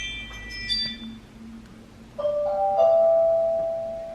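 Two-note chime: a lower tone about two seconds in, then a slightly higher one half a second later that rings and slowly fades, after the dying ring of earlier bell-like tones.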